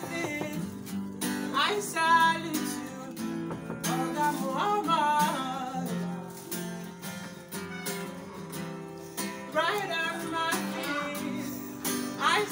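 Acoustic guitar strummed steadily in chords, with a man singing over it in short phrases.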